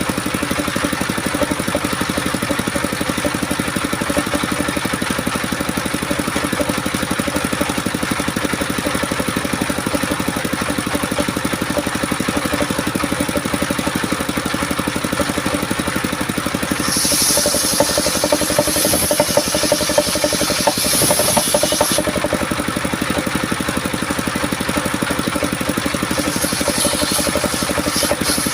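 Homemade engine-driven circular sawmill running steadily. Its blade cuts through coconut wood for about five seconds past the middle, and briefly again near the end.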